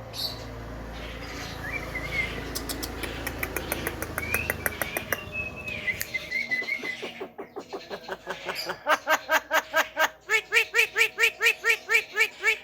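Javan myna (jalak kebo) calling: short whistled chirps mixed with a run of rapid clicks, then from about nine seconds a fast series of repeated pitched notes, about three or four a second.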